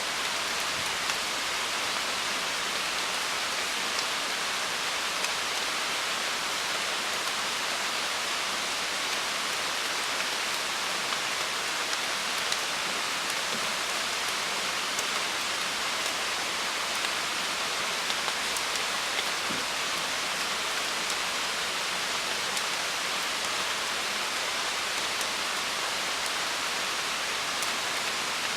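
Steady rain falling: an even hiss with faint drop ticks here and there.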